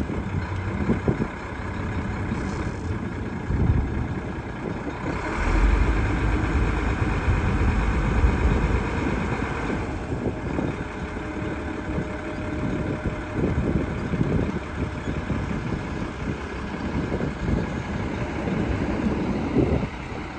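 1987 Ford F800 dump truck's diesel engine running steadily at idle, louder for a few seconds about five seconds in, while the hydraulic dump body is lowered.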